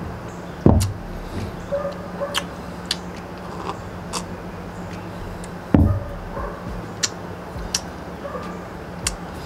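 A person drinking from a mug: scattered small clicks of sipping and mouth noises, with two dull thumps about five seconds apart, over a steady low hum.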